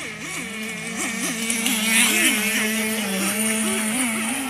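Radio-controlled model boat's motor whining steadily, its pitch dipping and briefly rising several times as the throttle changes. It gets louder about two seconds in, with a hiss of water spray.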